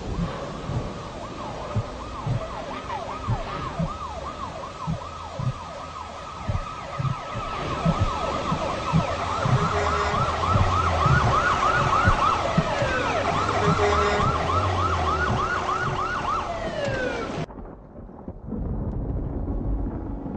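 Emergency vehicle sirens wailing in fast rising-and-falling sweeps, a second siren joining about halfway in, over low thuds; the sirens cut off suddenly near the end.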